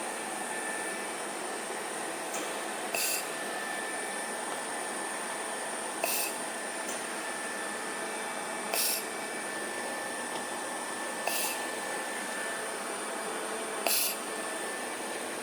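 Platform laser spot welder firing spot welds on galvanized steel sheet: five short hissing bursts about every two and a half to three seconds, over the machine's steady hum and high whine.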